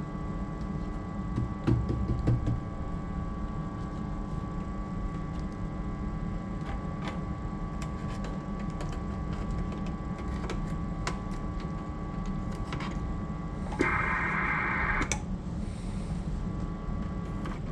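Kenwood TS-820S transceiver's transmit monitor: a steady hum with several steady tones above it, the fault hum from a loose connection that the owner traces to a wiring harness. Light clicks and taps run through it, and about 14 seconds in a loud raspy buzz sounds for about a second.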